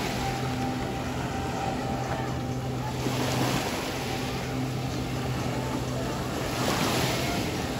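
Jet ski engine running steadily to power a flyboard, with the rush of its water jets swelling twice as the rider rises on the spray.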